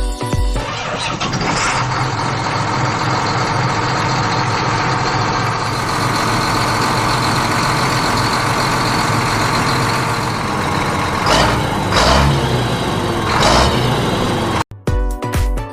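Tractor engine starting and running steadily, swelling in a few revs near the end before it cuts off abruptly.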